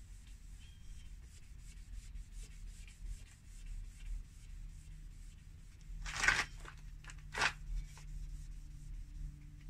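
4000-grit sandpaper rubbing on a plastic headlight lens: faint steady sanding, with two louder scrubbing strokes a little past the middle.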